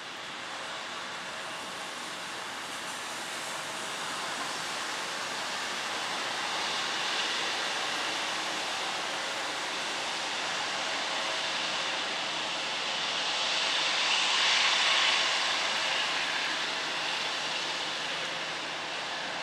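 Boeing 757-300 jet engines running at low taxi power as the airliner rolls slowly past: a steady whining rush that grows louder to a peak about three-quarters of the way through, then eases a little.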